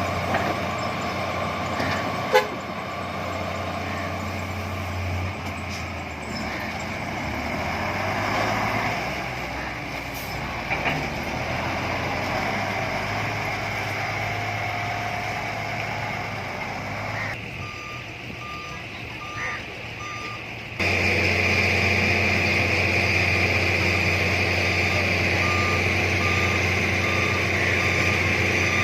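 Heavy diesel earthmoving machinery running with a steady engine drone and a sharp metallic knock about two seconds in. In the second half a vehicle's reversing alarm beeps steadily over the engine.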